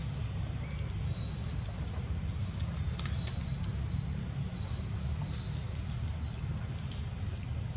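Outdoor ambience: a steady low rumble with faint, short, high chirps and scattered ticks over it.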